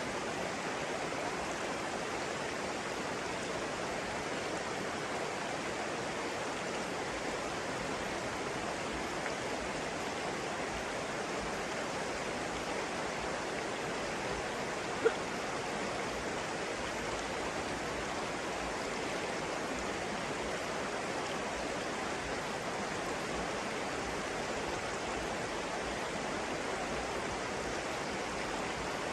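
Flowing water running steadily, an even rushing sound like a stream. About halfway through there is a single brief sharp blip that stands out above it.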